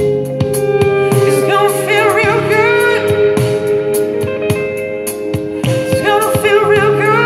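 A pop song with wordless, wavering vocal ad-libs over held chords and a steady drum beat.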